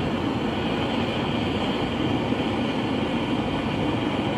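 Hand-held propane torch burning steadily, its flame heating a steel tube and fitting for silver soldering.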